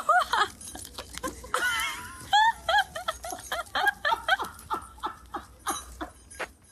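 A person laughing: a string of short laughs that slowly fades away.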